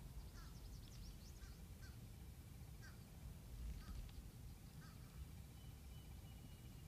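Faint bird calls: short, repeated, bent-pitch calls every half second to a second, over a steady low rumble.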